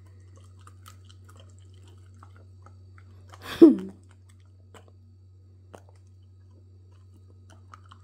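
Soft chewing and crunching of crispy scorched rice (nurungji) scraped from the bottom of a cast iron pot, faint and irregular over a steady low hum. About three and a half seconds in, a short voice-like sound slides down in pitch.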